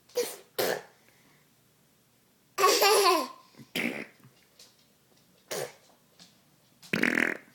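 A baby laughing in short separate bursts. The longest and loudest is a high-pitched laugh about three seconds in that falls in pitch.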